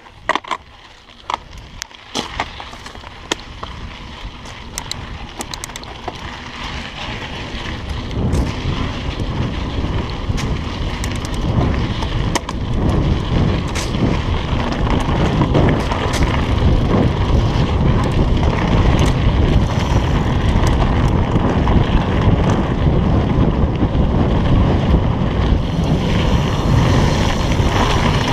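Mountain bike descending a dirt singletrack: scattered clicks and knocks from the tyres and bike over the first several seconds, then wind buffeting the camera microphone that grows louder and heavier from about eight seconds in as the bike picks up speed.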